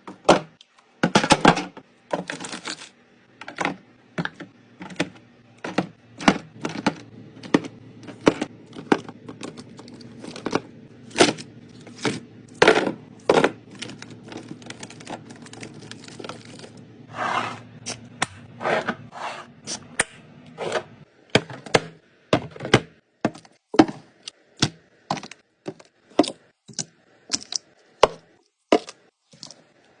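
Food containers and packages being handled and set down while restocking a fridge: an irregular run of sharp clicks, taps and knocks, about one or two a second. A low steady hum underlies the first two thirds and stops about 21 s in.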